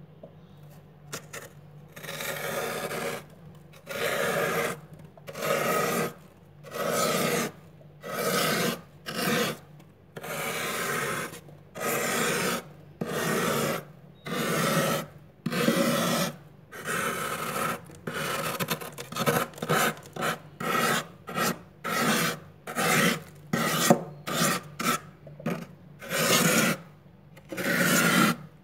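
Metal spoon scraping frost off the inside wall of a freezer in repeated rasping strokes, starting about two seconds in, roughly one a second at first and shorter and quicker, about two a second, in the second half.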